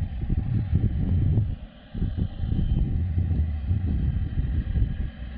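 Gusty low rumble of wind buffeting the microphone, easing briefly a little before two seconds in, with a faint steady jet engine sound under it.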